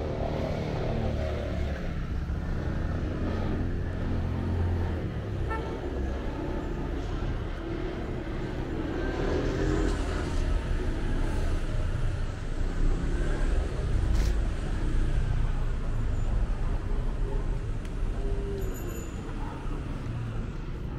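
City street ambience: motor traffic running steadily, with scattered voices of people passing.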